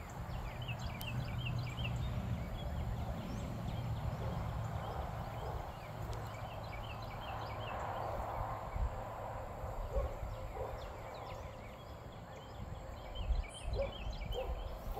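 Small birds chirping in three short runs of quick high notes, over a low rumble of outdoor background noise.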